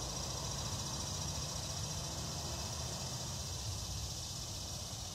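Steady hiss with a low rumble underneath, no distinct sounds standing out.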